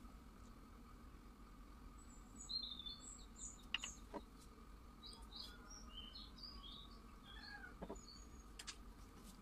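Small birds chirping faintly in many short high calls over a low steady hum, with a few sharp clicks.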